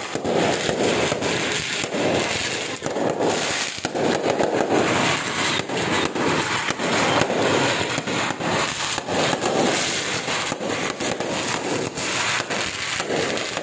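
Aerial fireworks going off in quick succession: a dense, unbroken run of bangs and crackling bursts.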